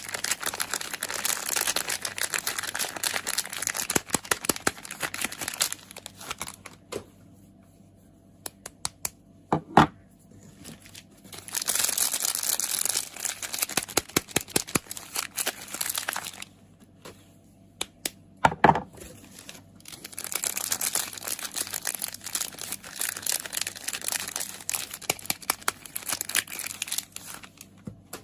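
Soap packaging being unwrapped by hand: the wrappers crinkle and tear in three long spells, with scattered light taps and clicks between them and two louder knocks, one near ten seconds in and one a little past eighteen.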